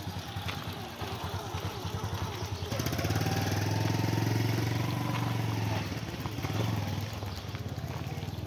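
Small motorcycle engine running as the bike rolls slowly past close by, growing loud about three seconds in and fading after about six seconds.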